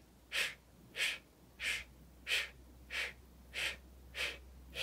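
A person's short, sharp breaths in a steady rhythm, about eight of them, roughly one every two-thirds of a second. Each breath goes with one repetition of a cheek push-up, a face yoga exercise that lifts the cheeks.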